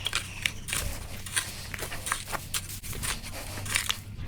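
Irregular light clicks and crunching scrapes, many in quick succession, over a steady low hum.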